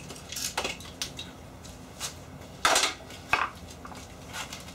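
Metal bars from a motorized bed base clanking as they are handled and laid down, a few separate metallic knocks with the loudest about three seconds in.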